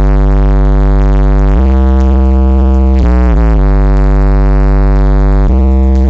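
Synth bass music played loud through an Alpine car audio system, heard inside the car's cabin. Deep sustained bass notes from the SWR-1243D subwoofer in a ported box change pitch every second or two, with a quick pitch dip and bend a little past the middle.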